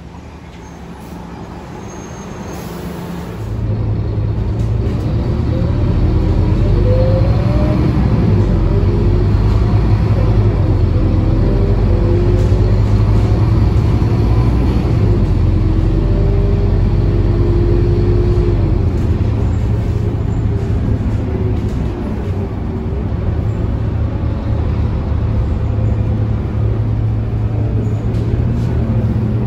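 Scania K230UB city bus heard from inside the saloon: its diesel engine runs loud and low while the bus drives off and gets up to speed, with a whine that rises in pitch as it accelerates. The first few seconds are quieter, then the engine sound jumps up about three and a half seconds in.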